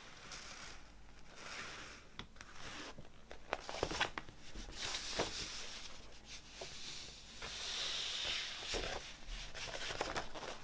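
A folded glossy paper poster being unfolded and handled, rustling and crinkling, with a few sharp crackles of the paper.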